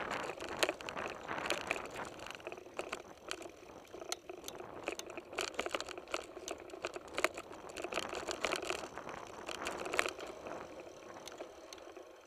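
Mountain bike riding over rough dirt and gravel singletrack, picked up by a camera mounted on the bike: a dense, irregular clatter of knocks and rattles as the bike and its knobby tyres go over stones and ruts, over a steady hiss of tyres and brush.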